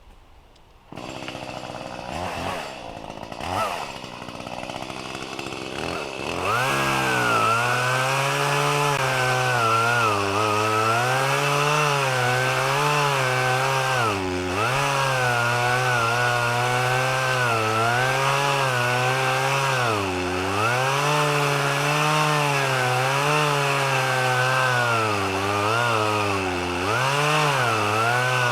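Echo CS-310 two-stroke chainsaw cutting through a tree trunk in a felling cut. It revs unevenly for the first few seconds, then runs at full throttle from about six seconds in, its pitch dipping briefly several times as the chain loads in the wood.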